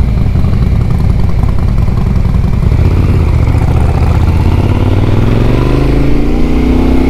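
Motorcycle engine running under way, its pitch rising steadily over the last few seconds as it accelerates.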